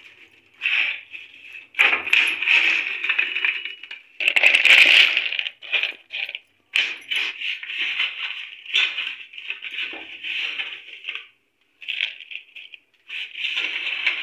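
Crisp fried besan sev being poured into a plastic container, the crunchy strands clattering and rustling against the plastic in a string of uneven bursts, loudest about four to five seconds in.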